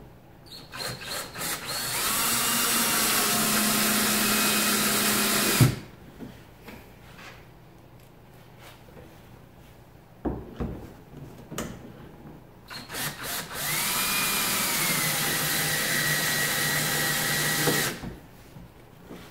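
Cordless drill driving 3/4-inch galvanized decking screws through a mount into a plastic kayak hull: a few short trigger pulses, then two steady runs of about five seconds each, the second starting about halfway through. The first run ends with a sharp knock as the drill stops.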